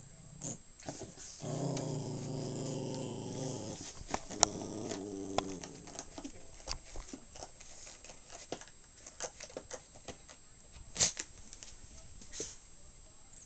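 Small Maltese or Shih Tzu-type dog growling in play over a plush toy: one low, continuous growl lasting about four seconds, starting about a second and a half in. After it come scattered light clicks and taps.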